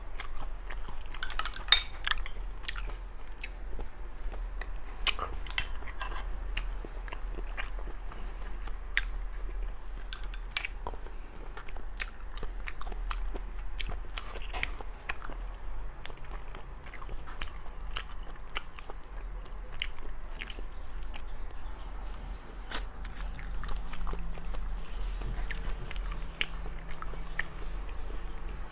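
Close-miked chewing and biting of seasoned sea snail meat: many small wet mouth clicks throughout, with two sharper, louder clicks, one about two seconds in and one near three-quarters through.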